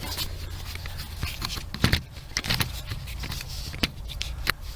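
Scattered light clicks and knocks of hand tools and hardware being handled under a car's dash, with one louder knock about two seconds in, over a steady low hum.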